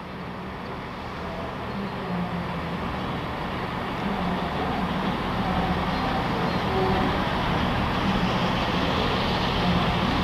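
Steam locomotive 60163 Tornado, an A1 Pacific, approaching from a distance with a train, growing steadily louder throughout.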